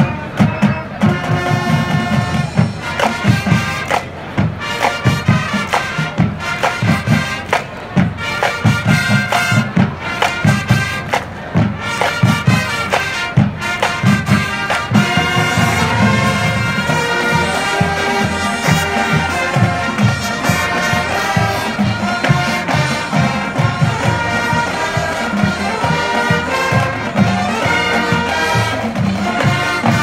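Marching band playing: brass sustaining full chords over a steady beat of drums and percussion.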